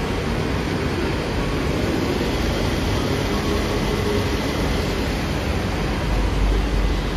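Steady background roar of an airport departure gate area, an even noise with no distinct events, a little heavier in the low end near the end.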